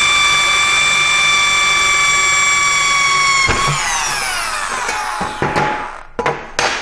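Electric power drill running at steady full speed, drilling a hole in a metal rack panel, with a steady high whine. About three and a half seconds in it is released and its whine falls as it spins down, followed by a few knocks and clatters.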